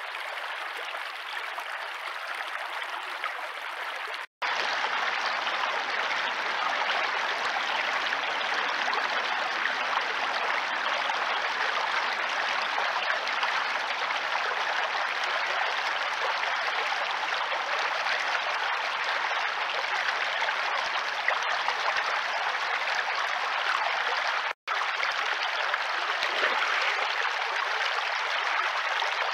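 Shallow woodland stream running over stones: a steady rush of water, stepping up in level about four seconds in and breaking off for an instant twice.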